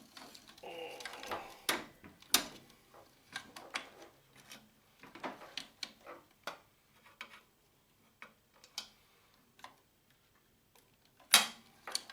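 Scattered light clicks and taps of small metal parts and tools being handled while a printer's power supply is dismantled, with a sharper knock near the end.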